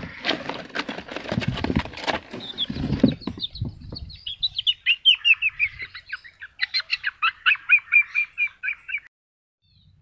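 Just-slaughtered male quail flapping inside a sack-covered plastic tub: dense thumps and rustling for about three seconds. Then a bird chirps in a fast run of short falling notes, and the sound cuts off suddenly near the end.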